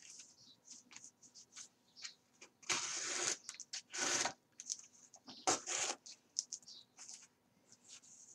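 Thread being drawn through the punched holes of card pages while sewing a coptic stitch binding. Three longer scrapes of thread sliding through the card come about three, four and five and a half seconds in, among short scratches and rustles of the card being handled.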